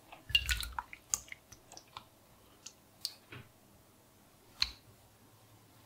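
A ready-meal tray knocking and scraping against a ceramic bowl as a thick curry is tipped out into it: a cluster of clicks and soft thuds in the first second, scattered light ticks after, and one sharper knock about four and a half seconds in.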